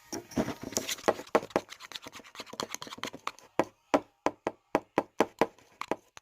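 Homemade slime being mixed and worked, giving a run of short sharp clicks and pops, dense and irregular at first, then about three a second in the second half.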